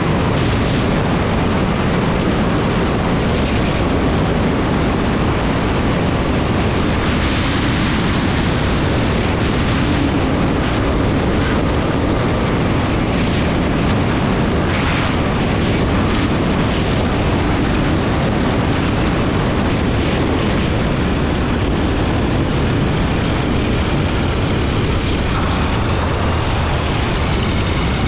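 Weight-shift ultralight trike's engine and pusher propeller running steadily, mixed with heavy wind rush on the wing-mounted microphone.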